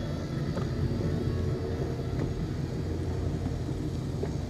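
Boat motor running with a steady low rumble.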